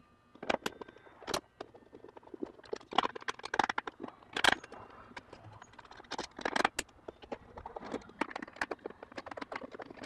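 A 2.5 mm hex T-handle wrench backing small screws out of an electric unicycle's plastic inner shell, with irregular clicks, ticks and short scrapes of metal on plastic as the screws come loose and are handled.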